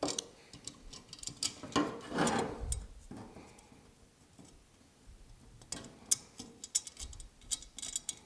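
Small metal clicks and ticks from slip-joint pliers gripping a screw head and from a steel test block being handled, with a louder burst of noise about two seconds in. The clicks come again in a cluster near the end after a quieter stretch.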